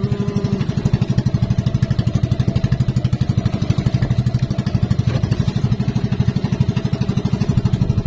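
Engine of a motorized outrigger banca running steadily under way, with a rapid, even pulse.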